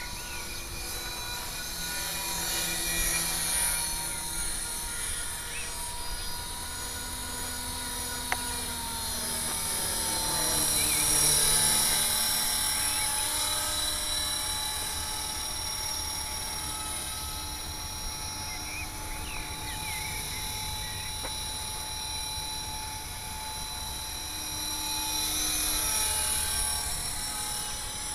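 HK 450 Pro TT electric RC helicopter running, its motor and rotors giving a steady multi-toned whine that rises and falls in loudness. The rotor speed drops from about 2400 to 2200 rpm around eleven seconds in. The unhealthy extra noise comes from a defective mainshaft ball bearing.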